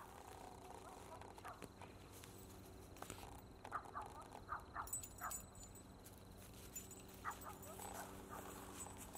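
A dog making short, soft noises over a faint steady hum: a quick cluster of five or so about four to five seconds in, and a few more near the end.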